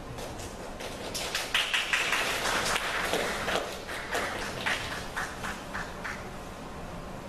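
Scattered hand clapping from the audience in a large hall, dense for a couple of seconds and then thinning to a few single claps.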